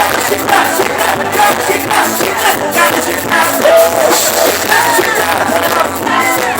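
Live forró band music, played loud with a steady beat and a voice singing over it.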